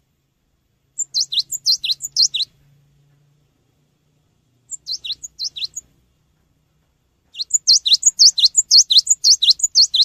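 Cinereous tit (gelatik batu) singing: three bursts of fast repeated, sharp whistled notes, each note sliding downward in pitch, with short pauses between. The third burst is the longest and loudest.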